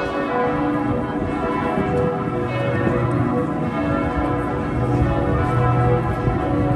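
Bells ringing together, many overlapping tones sounding at once.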